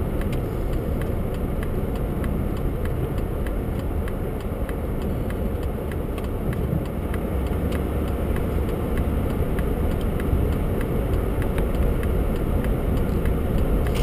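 Steady low rumble of a car's engine and tyres heard from inside the cabin while driving on a snow-covered road.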